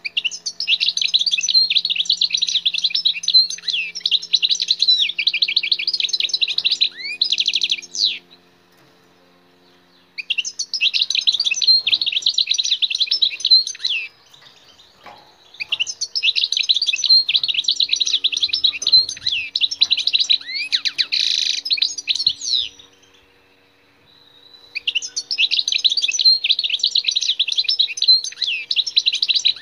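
Wild-caught European goldfinch singing. There are four bouts of fast twittering song, each several seconds long, with short pauses of about two seconds between them.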